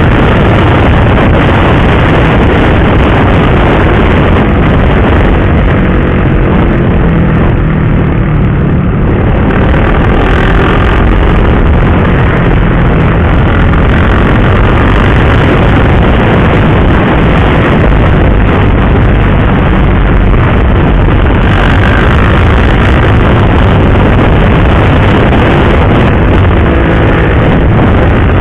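KTM RC 390 single-cylinder sport bike running at road speed. Its engine drone is nearly buried under loud, steady wind rush on the helmet microphone. The rush eases a little between about six and ten seconds in.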